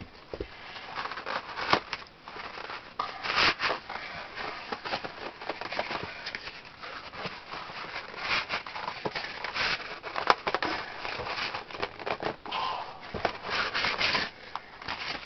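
Cardboard toy-kit box being opened and its packaging handled: irregular rustling, scraping and crinkling with many scattered sharp clicks.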